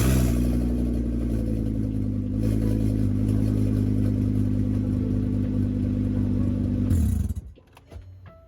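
Turbocharged 2.5-litre inline five-cylinder (VW 07K) engine firing up and running steadily for about seven seconds, then shut off. It still has an accelerator position sensor fault logged.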